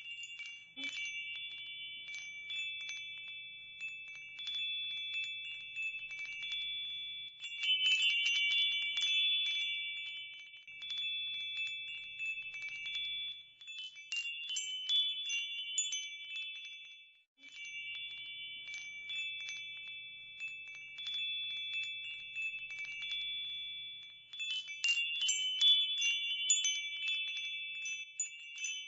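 Chimes tinkling, with many light strikes over several sustained ringing tones, growing louder in clusters about eight seconds in and again near the end.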